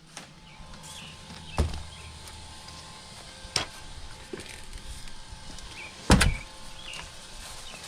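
Several sharp knocks and thumps, the loudest about six seconds in, with quieter handling noise between them.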